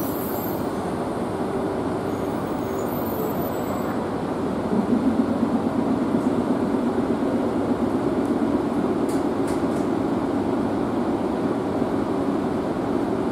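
E3-series Shinkansen train running alongside the platform, a continuous rumble of motors and wheels that grows louder and deeper about five seconds in.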